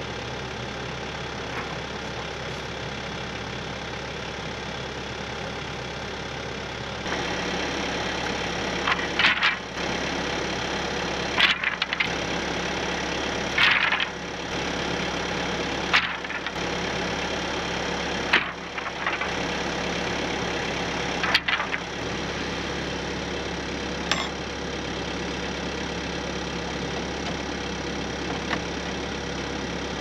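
An engine running steadily, louder and fuller from about seven seconds in, with a series of sharp knocks every two to three seconds through the middle of the stretch.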